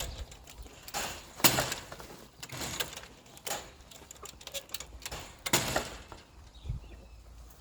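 Irregular scratchy strokes of leaves and chicken droppings being swept up off the ground, several in quick succession with short pauses between them.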